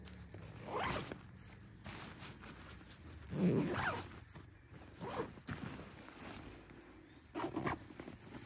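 Zipper on a green tactical backpack being pulled shut in four separate strokes, the loudest near the middle.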